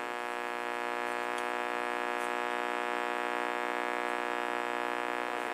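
1957 Ford 75MF push-button AM car radio giving a steady buzzing hum through its speaker, with no station coming through.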